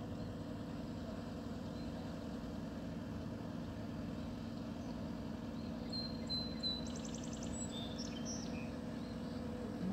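Steady low rumble of outdoor background noise with a faint steady hum. Birds chirp a few times about six seconds in, including a quick trill.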